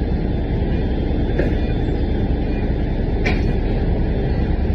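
Steady rumble of a city transit bus under way, heard from inside the passenger cabin, with two short clicks, one about a second and a half in and one about three seconds in.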